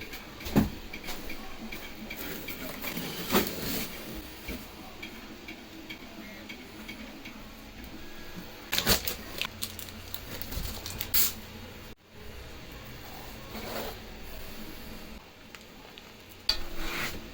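Packaging and printer parts being handled during an unboxing: scattered clicks and knocks over rustling, with louder clatter about nine and eleven seconds in and again near the end.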